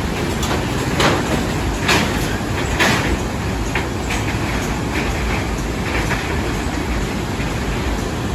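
Steady road rumble of a vehicle driving across a suspension bridge, heard from inside the cabin, with a sharp clunk about every second as the wheels pass over the deck.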